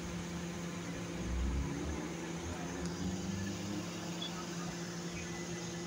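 Steady mechanical hum over outdoor background noise, with a low rumble swelling about a second and a half in.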